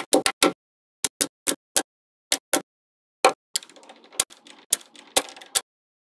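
Small magnetic balls clicking as they are snapped onto a block of magnet balls: about a dozen sharp clicks at uneven spacing. A soft rattle of balls shifting comes in just past the halfway point and lasts about two seconds.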